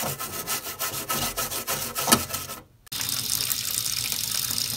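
A toothbrush scrubbing a wet circuit board in window cleaner, in quick rubbing strokes. After a brief break a bit over halfway through, a steady hiss of running water.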